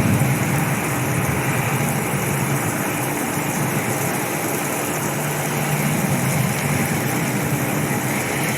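A steady low engine hum under a constant even hiss, with no change through the stretch.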